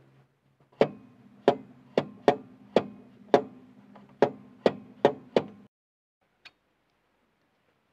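A Perodua Kenari's rear wheel hub clunks about ten times, at an uneven pace, as it is rocked back and forth by hand. The hub is loose on its axle because the hub nut has worked loose, and the hub is close to coming off.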